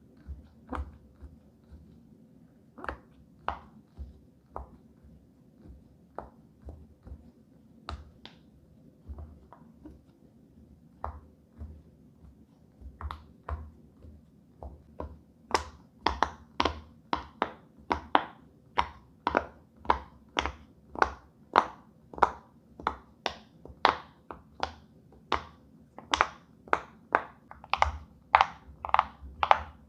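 Silicone pop-it fidget toy having its bubbles pressed down one after another, each giving a soft pop. The pops are scattered and quieter at first, then from about halfway in they come as a steady, louder run of about two to three a second.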